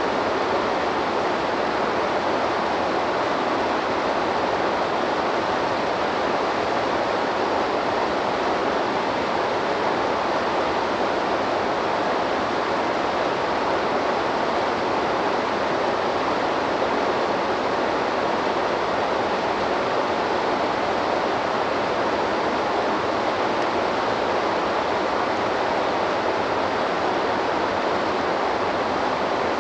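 Waterfall on a river: falling water making a steady, even rush.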